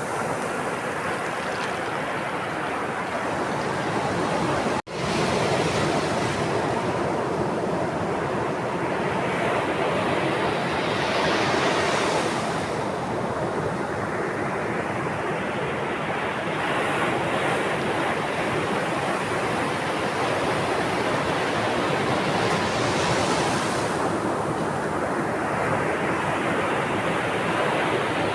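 Ocean waves breaking and washing onto a shore in a continuous rush, swelling into two bigger breakers about twelve and twenty-three seconds in. A brief break in the sound comes about five seconds in.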